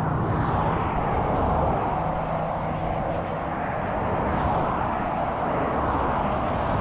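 Steady rush of highway traffic passing at speed, with a motorcycle engine running low underneath.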